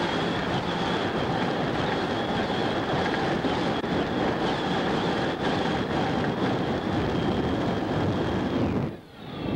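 Chevrolet 454 big-block V8 with open headers running hard in a flatbottom drag boat at speed, mixed with wind and water rush. The sound drops away abruptly shortly before the end, then comes back.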